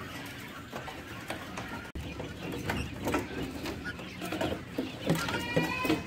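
Young quail in a wire cage pecking and scratching about, making many short scratchy clicks. One bird gives a short call near the end.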